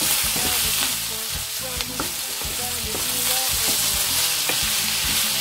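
Chopped onions and chicken sizzling in a non-stick frying pan while a wooden spatula stirs them, with a few sharp clicks of the spatula against the pan.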